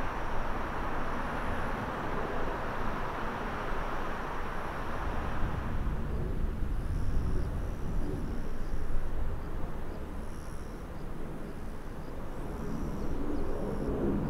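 Jet noise of a twin-engine airliner climbing away, cutting off about six seconds in. It gives way to the low rumble of an Airbus A320neo's geared turbofans on its takeoff roll, building near the end, with short high chirps over it.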